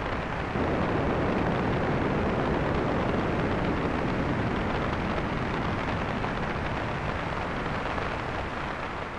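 Synthesized rainstorm from a VCV Rack modular patch: filtered white noise for rain and wind mixed with a low, rumbly thunder like thunder in the distance, made from a quick burst of triggers on a distorted, low-pass-filtered noise voice. The dense rushing noise swells about half a second in, holds, and slowly fades near the end.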